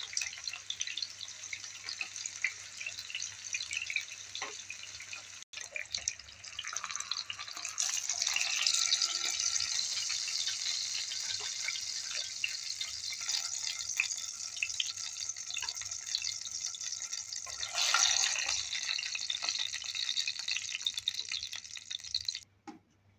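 Eggplant halves frying in hot oil in a nonstick pan: a steady sizzle full of small crackles and pops. It grows louder about a third of the way in, surges briefly later on, and cuts off abruptly just before the end.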